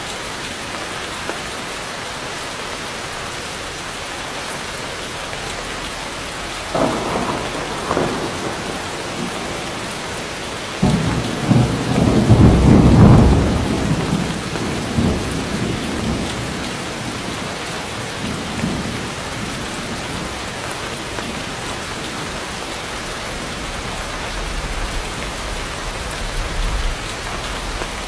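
Heavy tropical rain pouring steadily on dense forest foliage, with thunder: a sudden crack about a quarter of the way in, then a loud rolling rumble near the middle that dies away, and a fainter rumble near the end.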